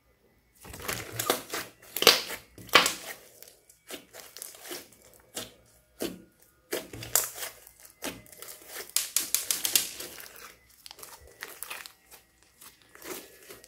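Thick, bead-studded slime being squeezed, stretched and folded by hand. It gives bursts of sticky crackling and clicking that start about a second in and come and go irregularly.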